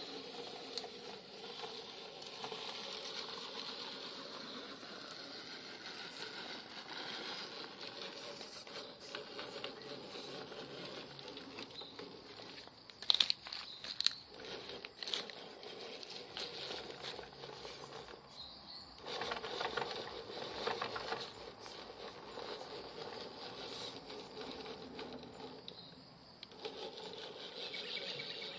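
Scale RC rock crawler's electric motor and gear drivetrain whirring as it creeps over the rocks, with a few sharp knocks about halfway through. The whirring stops briefly about two-thirds of the way in and again near the end, as the throttle is let off.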